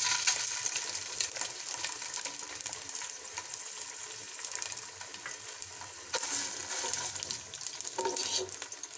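Ginger paste sizzling and crackling as it fries in hot oil in a non-stick pot, stirred with a plastic spoon. The sizzle swells again about six seconds in and once more about eight seconds in.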